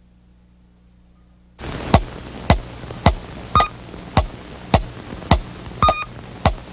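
A low hum, then about a second and a half in the cartoon's opening soundtrack starts over a steady hiss: a regular beat of sharp thumps, about two a second, each dropping quickly in pitch, some with a short high beep on top.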